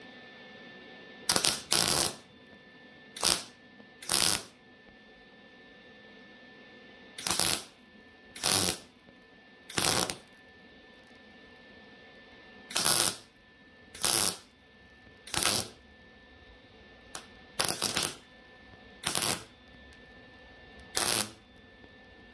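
Welder laying a series of short tack welds on the sheet metal of a 1990 Ford F-250 cab: about fourteen brief bursts, each under a second, with pauses of one to three seconds between them. A faint steady hum runs underneath.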